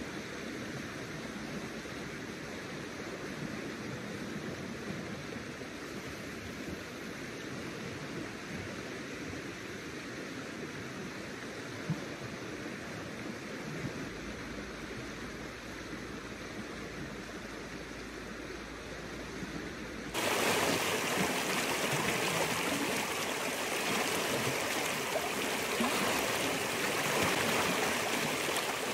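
Steady rushing of a fast river flowing past a rocky bank. About twenty seconds in, the sound turns suddenly louder and brighter, with the water heard up close at the rocks.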